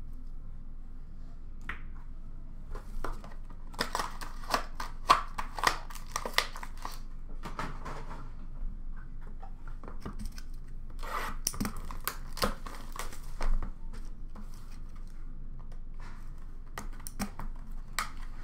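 Cardboard trading-card boxes being handled and torn open, with rustling of packaging and clicks of cards and cases. The sounds come in clusters: about four seconds in, again around eleven seconds, and near the end.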